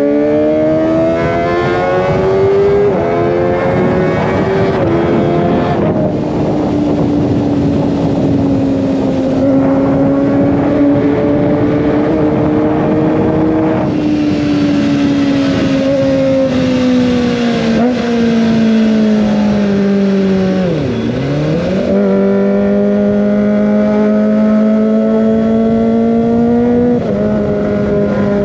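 Kawasaki ZX25R's 250 cc inline-four through an Over Racing GP-RS full-system exhaust, revving high while riding. It climbs with quick upshifts at first and holds, then engine speed falls away to a sharp dip about two-thirds of the way through. It picks up again and runs steadily, with wind and road noise underneath.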